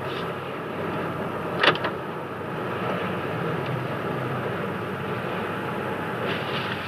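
Cabin noise inside a new Toyota Land Cruiser LC300 driving slowly: a steady rush of engine and tyre noise, with one sharp knock a little under two seconds in.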